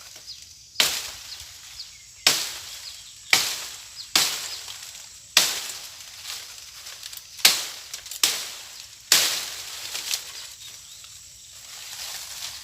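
A blade hacking at a broken mango branch: about eight sharp chopping blows at uneven intervals, each dying away quickly.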